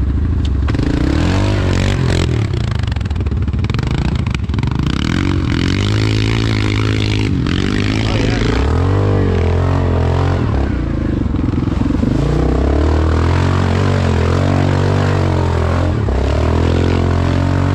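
ATV engine running under load and being revved, its pitch climbing and dropping again and again, with a few knocks and rattles.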